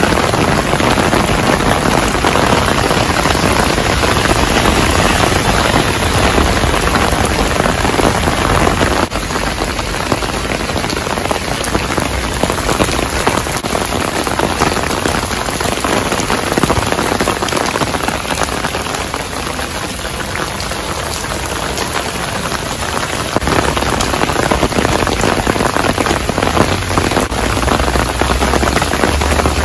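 Heavy rain falling on paved streets and pavements, a dense steady hiss of rain with splashing. The sound drops a little and changes abruptly about nine seconds in.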